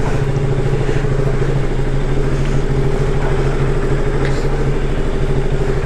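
Motorcycle engine idling steadily, with an even, rapid firing pulse and no revving.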